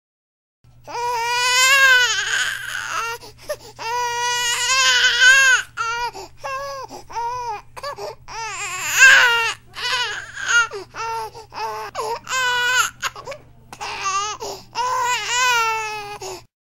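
Newborn baby crying: a long run of high-pitched wails, each rising and falling in pitch, with short catches of breath between them.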